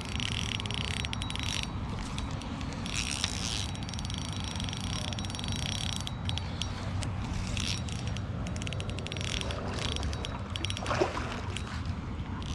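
Spinning reel being cranked in short spells, its gears whirring and ticking, over a steady low wind rumble on the microphone, with one sharp tick near the end.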